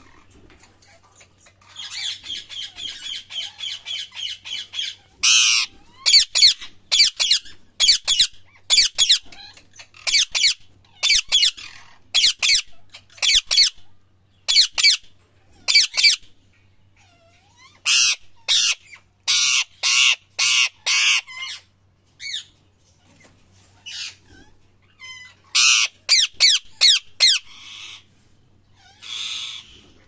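Indian ringneck parakeet calling: about three seconds of fast chattering, then a long series of loud, sharp screeches in quick runs separated by short pauses, growing fainter near the end.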